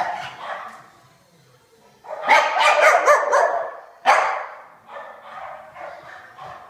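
A dog barking in play: a few barks at first, a quiet second, then a loud rapid run of barks about two seconds in, a sharp single bark at about four seconds, and softer barks after.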